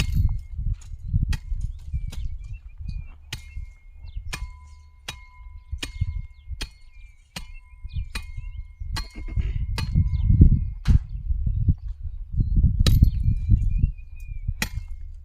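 A hand tool chopping into soil and weeds: sharp strikes roughly once a second over a low, uneven rumble.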